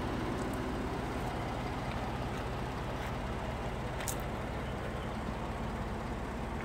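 Steady low hum of an idling vehicle engine with outdoor ambience, and a few faint clicks.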